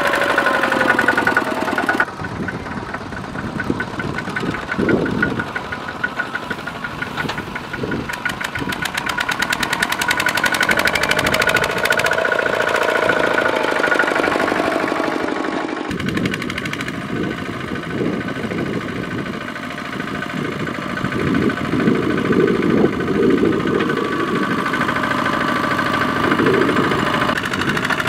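Single-cylinder Kubota diesel engines of two-wheel walking tractors running under load, with a fast, even knocking beat as they pull loaded trailers through rice straw. The engine sound changes abruptly about two seconds in and again around halfway through.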